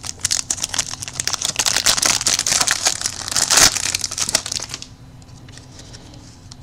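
Plastic wrapper of a trading card pack crinkling as it is torn open and handled, for about five seconds, then it goes quiet.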